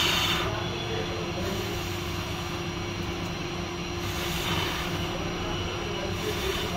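Steady low mechanical hum with a constant tone under it, with a short hiss right at the start and a weaker one about four and a half seconds in.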